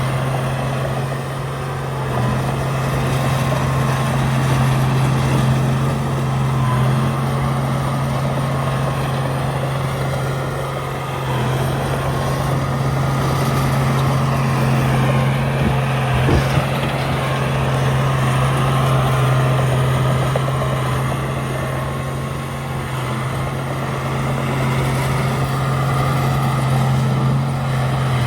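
Diesel engine of a Komatsu D31A crawler bulldozer running steadily under work, its level rising and falling a little as it pushes soil. There is one sharp clank about sixteen seconds in.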